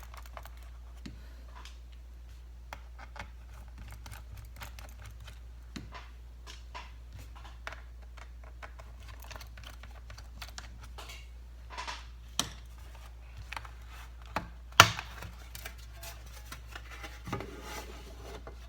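Scattered small clicks and taps of screwdriver work on a laptop's underside, with a louder sharp click about fifteen seconds in, over a steady low hum.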